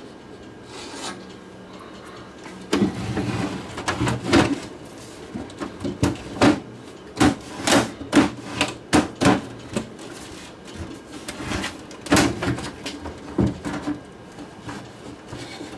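Plastic rear cabinet of a small CRT television being worked and pressed onto its front bezel: a run of hollow plastic knocks, scrapes and clicks. It starts about three seconds in and goes on for some ten seconds.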